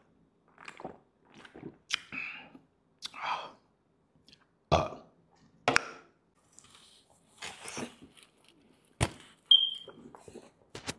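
Close-up eating and drinking noises: swallows of soda from a can and a burp, then mouth sounds, broken up by a few sharp knocks. Near the end a bite into a large burrito begins.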